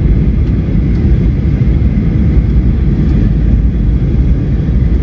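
Steady low rumble inside a jet airliner's cabin during descent to land: the wing-mounted turbofan engine and rushing airflow, heard from a window seat beside the engine.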